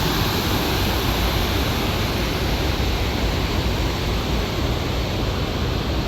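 Waterfall rushing: a steady, even wash of noise with a deep rumble underneath.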